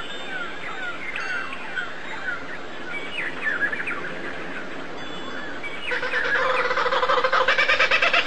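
Small birds chirping in quick, short downward-sliding notes; about six seconds in, a louder, rapidly pulsing bird call with a steady pitch starts and grows stronger.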